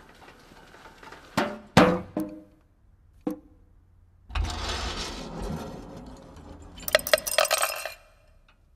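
Honda Accord parts knocking into one another in a chain reaction: a few sharp metallic clinks with short ringing about one and a half to two seconds in, then a long sliding, rolling run along a metal rail that ends in a quick rattle of clanks.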